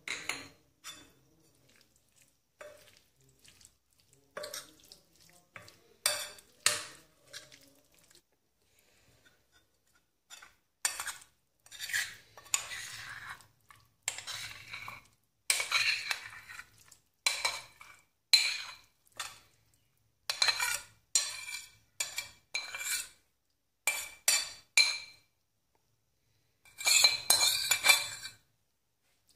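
A metal spoon stirring chopped tomato chutney in a glass bowl and scraping it out onto a plate: irregular clinks and scrapes of metal on glass, coming in short runs with pauses between them.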